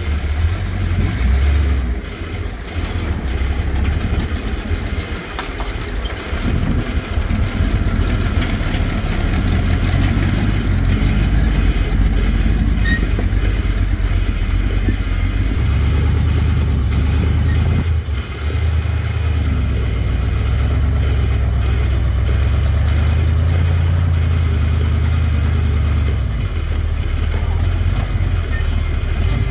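Rock-crawling buggy's engine running and revving unevenly as it climbs a steep sandstone ledge, settling into a steadier low drone about halfway through.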